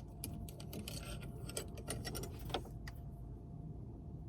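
Irregular small clicks and taps of plastic phone-mount parts being handled and fitted to a car's dashboard, over a faint low rumble.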